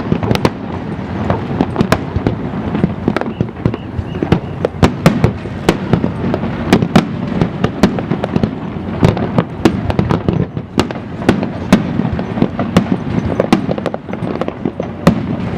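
Aerial fireworks bursting in rapid succession: many sharp bangs, several a second, over a continuous low rumble and crackle of shells going off.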